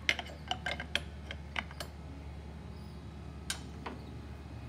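Metal clicks and light knocks of a steel rotor holder wrench being fitted onto a motorcycle engine's rotor: a quick run of clicks in the first two seconds, then two more near the end.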